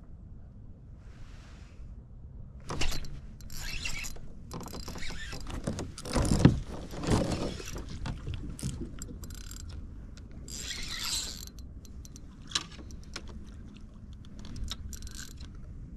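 Irregular clatter, knocks and rasps of fishing gear and the camera being handled aboard a fishing kayak, loudest as a thump about six seconds in, with a single sharp click later, over a steady low rumble.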